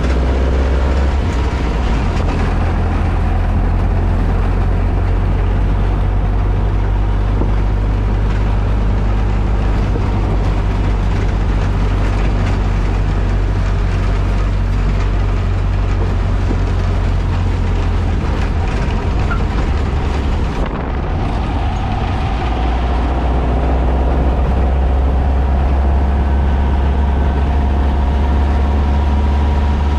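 VW Baja Bug with a 1968cc air-cooled flat-four stroker engine on dual carburetors, driving, heard from inside the cabin: a steady low engine drone mixed with road noise. The engine sound dips briefly about two-thirds of the way through, then carries on.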